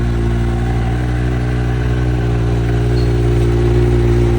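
Kawasaki Z1000 inline-four engine idling steadily just after a cold start, its first run after sitting unused for about six months.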